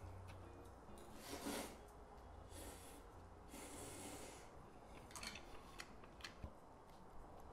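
Bibim-guksu noodles slurped in three airy sucking bursts, the first the loudest, followed by a few faint clicks.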